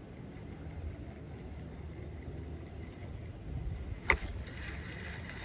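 Low rumble of wind on the microphone, with one sharp click about four seconds in.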